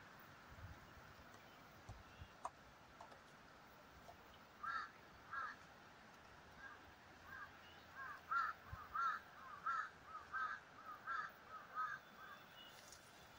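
A bird calling repeatedly outdoors: about a dozen short, cawing calls, the first two spaced apart, then coming faster and closer together for several seconds.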